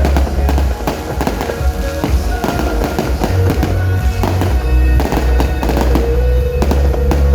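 Fireworks going off in rapid succession, sharp bangs and crackles several times a second, over loud music with heavy bass.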